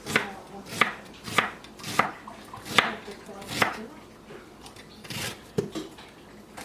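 Knife chopping an onion on a cutting board: slow, uneven strokes, each a sharp knock, roughly one every two-thirds of a second, with a short pause about four seconds in.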